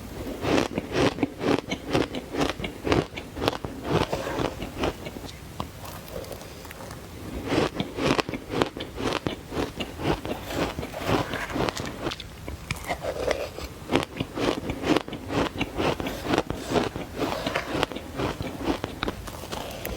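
Close-miked bites into frozen green matcha ice: dense runs of powdery crunches, one after another. The crunching lets up for about two seconds around five seconds in, then starts again.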